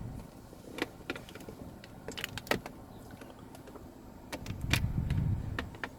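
Sharp plastic clicks and snaps as a pry tool works the dashboard climate control panel's trim clips loose. A low rumble from handling comes in about two-thirds through.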